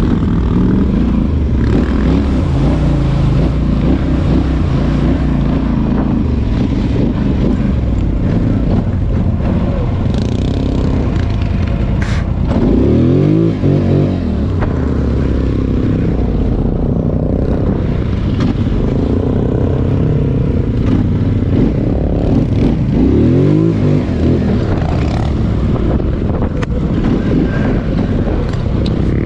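ATV engine running under way, rising and falling in pitch twice as the throttle is worked, with a single sharp click in the middle.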